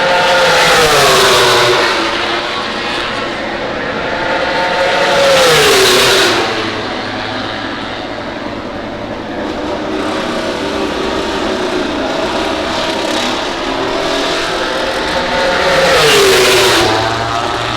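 MotoGP race bikes going by on track at speed, three loud pass-bys with the engine pitch dropping as each one goes past. Lighter engine sound carries on between them.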